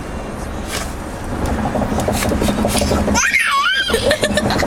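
A baby gives a high, wavering squeal of laughter about three seconds in, over a steady low hum.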